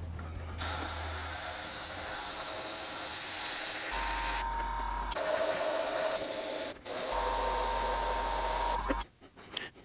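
Airbrush spraying paint onto a clear RC car body in a long steady hiss, with a short break about two-thirds of the way through.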